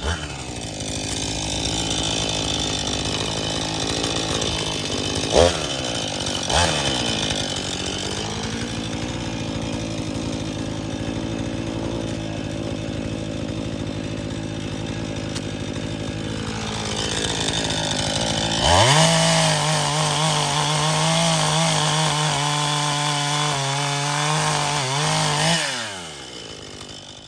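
Gas chainsaw running, then opened up to full throttle for about seven seconds two-thirds of the way through before dropping off near the end. Two sharp knocks sound about a fifth of the way in.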